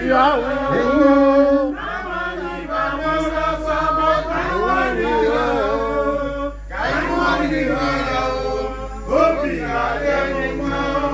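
Men's voices singing a chant-like song, in phrases of a few seconds with short breaks between them.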